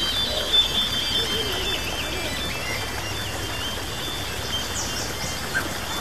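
Ambient music with high tones stepping up and down, layered over a nature-sound bed of bird calls and a steady hiss.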